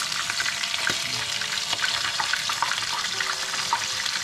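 Flour-coated basa fish fillets frying in hot oil in a pan: a steady sizzle with many small crackling pops.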